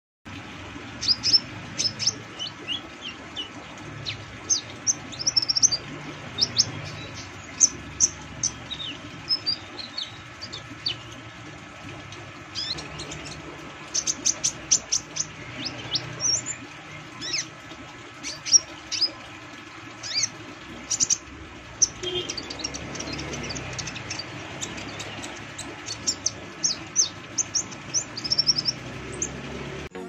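Caged male purple-throated sunbird (kolibri ninja) in mottled 'trotol' molting plumage calling: quick runs of sharp, high chirps and short twittering phrases, repeated all through. A faint steady hum lies beneath.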